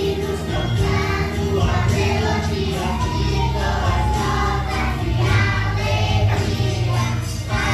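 Young children singing a Christmas cantata song together into microphones over musical accompaniment.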